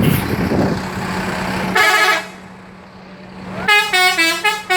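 Indonesian 'telolet' bus horn, a multi-tone musical air horn: it sounds one short chord about two seconds in, then plays a quick run of stepping notes near the end. A steady low hum runs under the first half.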